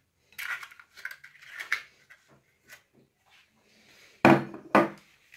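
Kitchen handling noises as food containers and a ceramic bowl are moved about on a table, with soft rustles and clicks, then two short, louder knocks about four seconds in.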